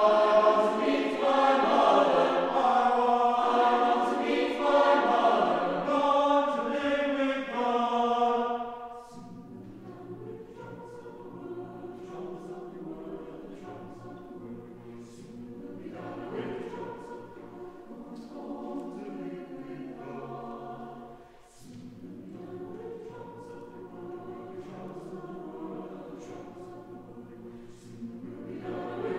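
Mixed choir singing chords, loud for about the first nine seconds, then cutting suddenly to a softer passage with low voices underneath. The singing breaks off briefly about twenty seconds in, then resumes.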